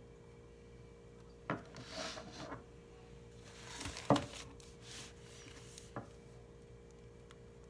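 Objects being handled on a desk: a click, some rustling, a louder knock about four seconds in and a last small click, over a faint steady hum. There is no run of keystrokes.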